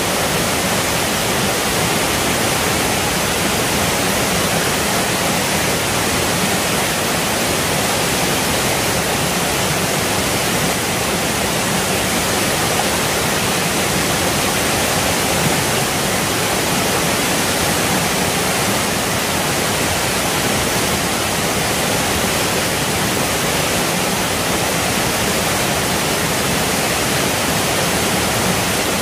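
Shallow rocky mountain stream rushing over small cascades: a steady, unbroken rush of water.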